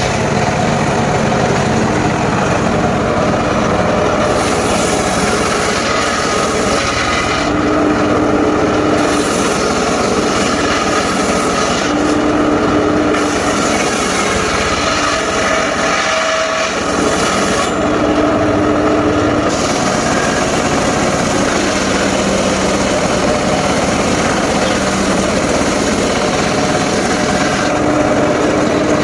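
Engine-driven circular saw running steadily while cutting mahogany and waru timber. Every few seconds there is a short lull where the hiss of the cut drops away and a steady hum comes through.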